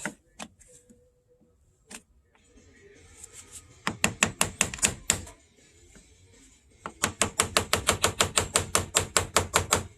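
Rapid light taps of a tool striking a corroded car-battery terminal clamp to spread it open, about ten a second, in two runs: a short one around the middle and a longer one near the end.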